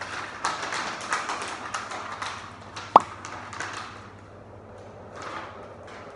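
Light tapping, about three times a second, from a Shiba Inu's claws on a tiled floor as it shifts and sits. About three seconds in comes one sharp, loud click from a dog-training clicker.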